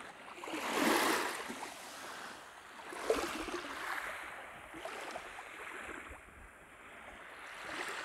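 Small waves from a calm sea lapping and washing up on a sandy shore, with the loudest wash about a second in.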